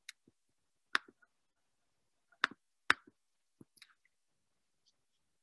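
Computer mouse clicked about six times at irregular intervals, each a short sharp click, several followed by a faint second click, with near silence between them.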